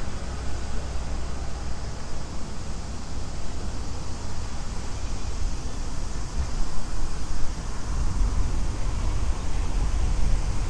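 Steady city street ambience: the low rumble of road traffic, with no single distinct event.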